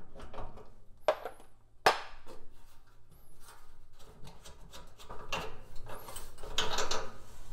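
Metal clicks and scrapes of tongue-and-groove pliers and a wrench working a stove's gas inlet fitting as the flexible gas line's nut is loosened, with a sharp metallic click about two seconds in.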